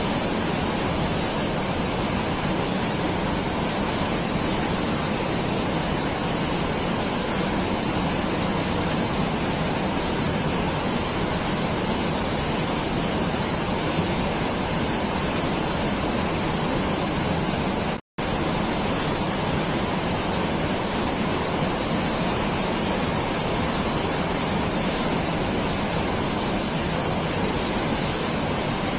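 A steady, even rushing noise with no changes in it, broken once by a split-second silent gap about 18 seconds in.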